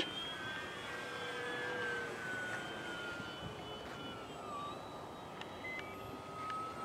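Radio-controlled electric model airplane flying overhead: the high, steady whine of its motor and propeller drops slowly in pitch over the first few seconds as it passes, then holds steady.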